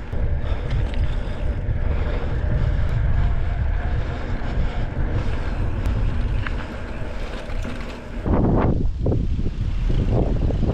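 Wind buffeting the microphone of a camera carried on a moving bicycle, a steady low rumble, with heavier gusty buffeting from about eight seconds in.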